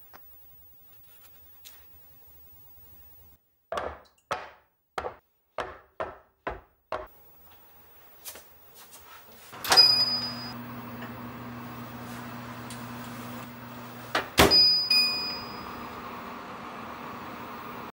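A batter-filled madeleine tray rapped flat on the counter about seven times, settling the batter. Then a clunk and a short beep as the oven is started, and it runs with a steady hum; a second clunk and beep comes about five seconds later.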